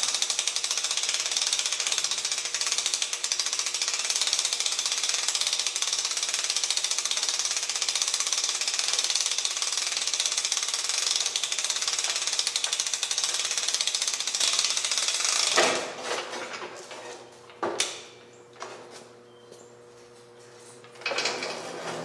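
Hand-cranked World War II era bomb hoist clicking rapidly and steadily as it is wound to lift a portable generator on its chain. The clicking stops about three-quarters of the way through, and a couple of separate knocks follow.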